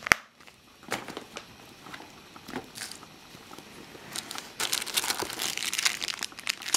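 A sharp click as a leather wallet is snapped shut, then scattered rustling of hands in a handbag. About four seconds in, a dense crinkling of the plastic wrapper of a pocket-tissue pack being pulled out and handled.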